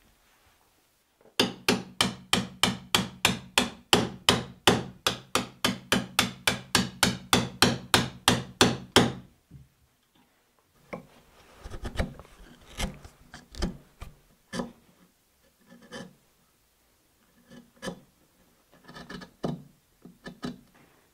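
A metal file worked rapidly back and forth inside a drilled hole in an oak block, about four strokes a second for some eight seconds, each stroke with a low ringing note from the wood. After a short pause, a chisel pares and scrapes the corners of the hole square in short, irregular cuts.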